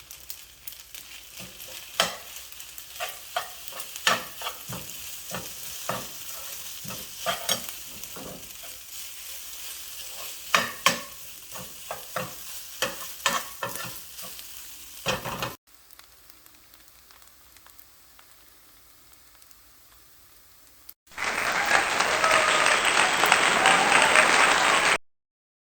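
Fried rice sizzling in a hot pan as a spatula stirs and tosses it, with frequent sharp clicks and scrapes of the spatula against the pan. About 15 seconds in this cuts to a faint hiss, then to a few seconds of loud, even noise near the end.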